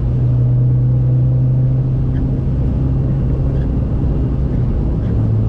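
Volkswagen Saveiro Cross pickup cruising on the highway: a steady low engine drone over road rumble, dipping slightly in pitch near the end.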